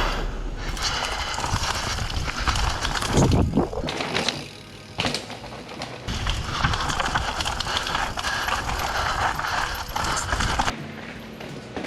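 Mountain bike riding down a steep, rocky downhill trail: tyres over rock and dirt, with clatter and knocks from the bike, including a heavy thump about three seconds in. A steadier run of noise in the second half cuts off suddenly near the end.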